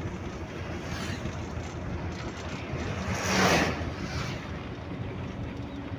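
Running noise inside a moving road vehicle: a steady low rumble of engine and road with a rushing hiss over it. The rush swells louder for under a second about three seconds in.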